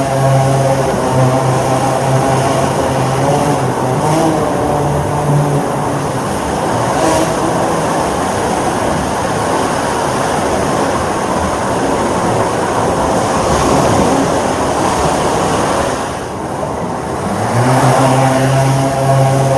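Drone propellers buzzing with a steady pitched hum. Partway through, the hum gives way to a rougher rushing noise, and the steady hum returns near the end.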